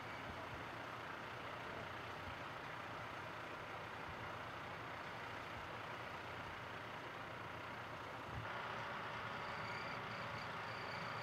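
Vehicle engines idling steadily at a distance, from the fire engines and emergency vehicles standing at the roadside, a little louder from about eight seconds in.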